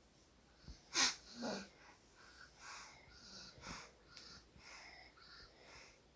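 A sleeper's snoring breath: a sharp, loud snort about a second in and a second one half a second later, then a run of short, hissy breaths about two a second.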